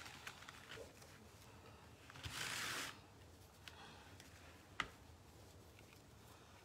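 Faint rustling of fabric ribbon being handled and tied onto a wire wreath frame, with a short louder swish about two seconds in and a single sharp click later on.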